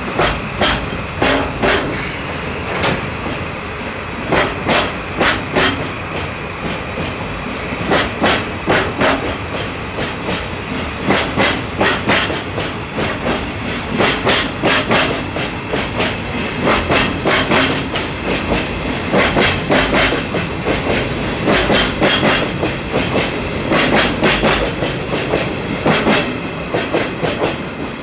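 Flatcar wheels of a rail-carrying freight train clattering over rail joints in regular clusters of clicks, over the steady drone of two DD51 diesel-hydraulic locomotives pulling the load.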